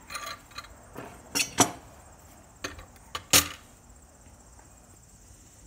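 Scrap aluminum pieces and a flat copper bar being handled on a glass-topped digital scale: a few light clinks and knocks, the loudest a heavier knock about three and a half seconds in as the copper bar is laid across the scale.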